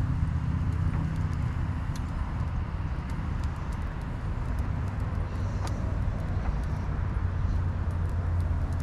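Wood campfire crackling with sparse small pops, over a steady low hum that is the loudest sound.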